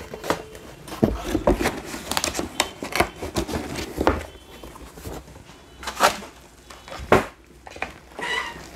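Cardboard laptop box and its inserts being handled and set down on a counter: rustling and scraping with scattered knocks, the two sharpest about six and seven seconds in.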